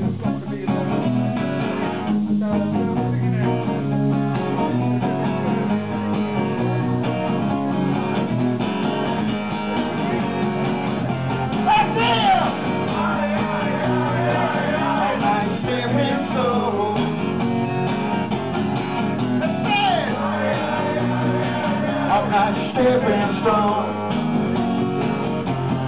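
Acoustic guitar strummed live, with a man's voice singing over it from about twelve seconds in.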